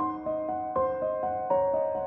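Calm instrumental music: ringing, sustained notes that overlap, a new note entering every quarter to half second in a flowing pattern.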